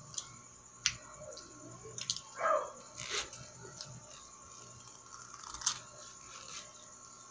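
Husks being peeled and torn off an ear of boiled sweet corn: scattered sharp crackles and rustles, with a short pitched squeak about two and a half seconds in.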